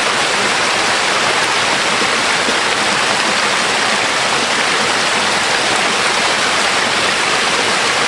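Waterfall: a steady, loud rush of falling water close by, with no breaks.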